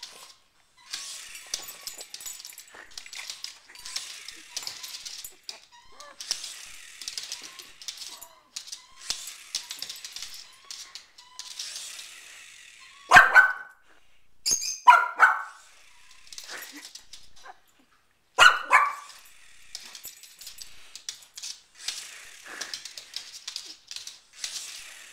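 Small dog barking: a few sharp barks about halfway through, with quieter scuffling noise in between.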